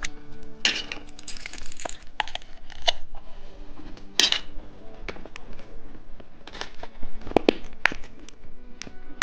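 Candy packaging crinkling and tearing in short, sharp rustles and taps, with the loudest bursts about four seconds in and again near the end, over soft background music.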